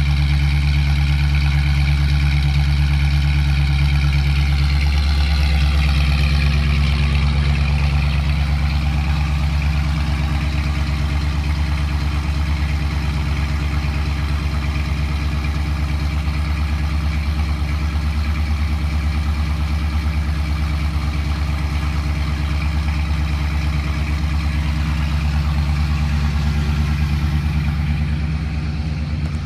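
A 1977 Ford pickup's engine (Explorer trim) idles steadily through its twin tailpipes, giving a deep, even hum. It eases a little in level about eight seconds in.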